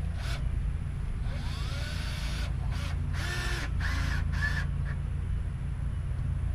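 Cordless drill run in several short bursts between about one and five seconds in, its motor pitch rising and falling with each squeeze of the trigger.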